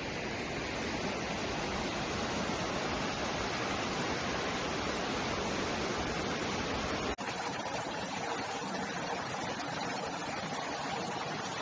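Steady noise of rushing floodwater. About seven seconds in it changes abruptly to a thinner, hissier rush with less low rumble.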